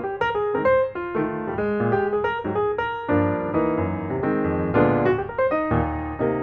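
Background piano music: a run of quick single notes, then fuller held chords over a bass line from about three seconds in.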